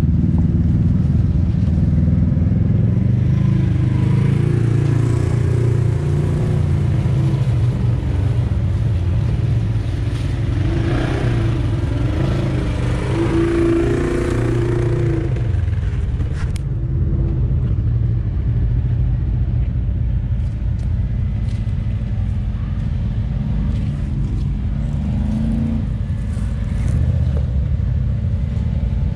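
Side-by-side UTV engines running at low crawling speed over rock, with the revs rising and falling a few times in the middle.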